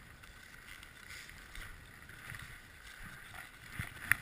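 Snowshoe footsteps in deep powder snow: soft swishing and crunching, with a sharp click just before the end.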